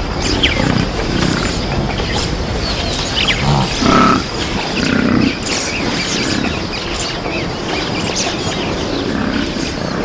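Cape buffalo grunting and lowing a few times, short low calls with the loudest about four seconds in, over a steady hiss of open-savanna ambience with occasional bird chirps.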